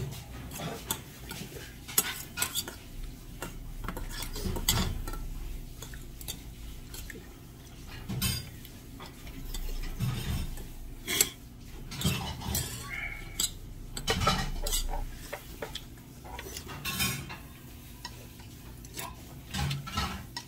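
Stainless steel spoon and chopsticks clinking and scraping against a stainless steel bowl as rice is stirred and eaten, in irregular clicks, with chewing in between.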